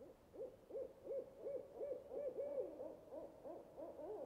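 Owl hooting: a rapid run of about a dozen faint hoots, each rising and falling in pitch, about three a second. A second, lower hooting voice joins near the end.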